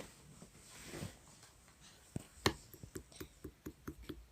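A run of light, irregular clicks, about three to four a second, starting about two seconds in after a quiet start, like fingers tapping or typing on a device.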